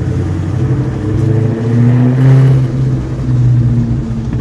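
Cammed 2003 SVT Mustang Cobra's supercharged 4.6-litre V8, fitted with a Whipple supercharger, Kooks headers and Borla ATAK exhaust, pulling under acceleration. It is loudest about two seconds in, eases off, then swells again briefly.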